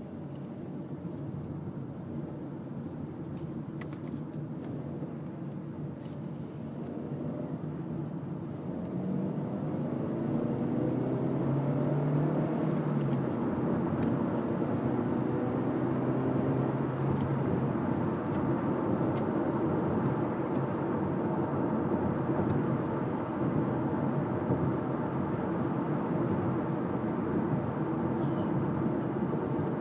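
Car engine and road noise heard from inside the cabin as the car pulls away and gathers speed. The engine note rises and the sound grows louder over the first ten seconds or so, then settles into a steady drone at cruising speed.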